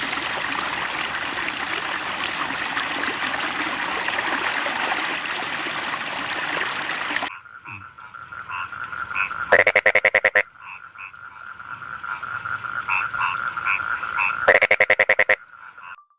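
Frogs calling: a dense, even chorus that cuts off about seven seconds in. Then come two loud croaks, each a rapid string of pulses, about five seconds apart, over a steady high trill and softer chirps.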